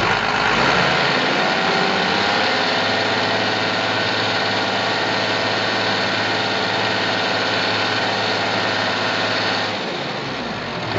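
Toyota 4-ton forklift's diesel engine revving up under the accelerator, then held at a fast steady speed. About ten seconds in it drops back toward idle.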